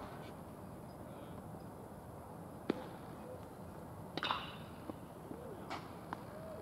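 Scattered sharp cracks and knocks of a baseball game: one loud crack about two and a half seconds in, a quick double crack near four seconds, and a few lighter knocks after it.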